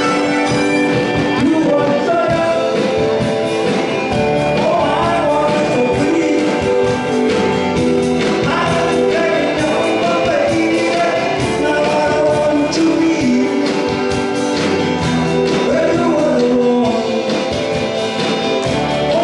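A pop song performed live through a PA: a singing voice over acoustic guitar and backing music.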